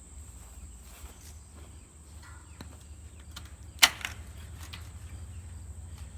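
Steady high insect drone, typical of crickets, over a low hum, with one sharp knock about two-thirds of the way through and a few faint ticks.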